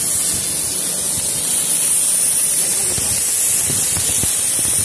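Manual metal arc (stick) welding from a DC inverter welding machine: the arc runs with a steady hissing crackle.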